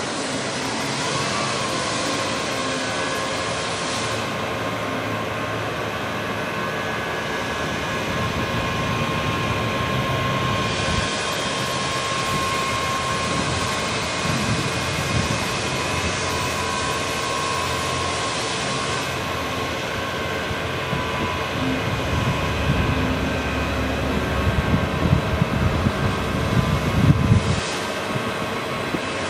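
Crane truck's diesel engine running steadily and driving the crane's hydraulics while the telescopic boom swings and the hook line pays out, with a steady whine over the engine hum. Louder, irregular low rumbling comes in for the last few seconds.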